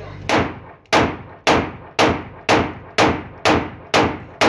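A .30 bore (7.62×25 mm Tokarev) pistol being test-fired in steady rapid fire: nine shots about two a second, each with an echoing tail.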